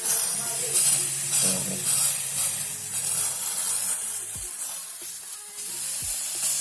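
Carbon cleaner hissing as it sprays out of a fuel injector being flushed, the spray coming and going unevenly, over background music.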